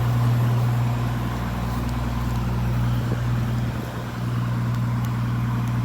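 A fire truck's engine idling steadily, a low, even hum.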